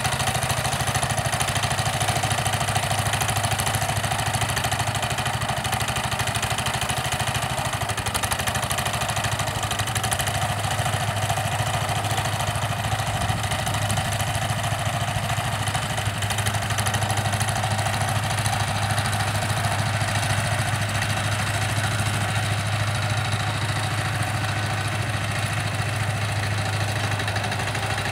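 Small engine of a homemade garden tractor running steadily as the tractor pulls ridging discs through the soil to make furrows.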